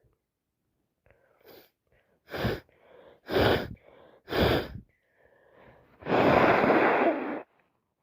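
A woman sneezing three times in quick succession, about a second apart, after a short intake of breath; then a longer blast of breath lasting over a second, the loudest part. A sneezing fit from a runny, itchy nose, which she puts down to allergies or a cold.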